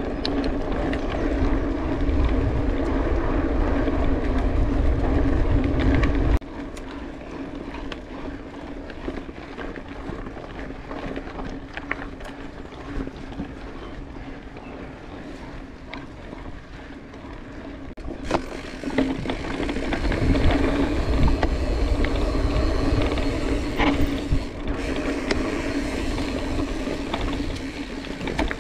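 Mountain bike being ridden on a trail: tyres rolling over the ground, with rattling and small clicks from the bike. A low rumble cuts off abruptly about six seconds in and builds again after about eighteen seconds.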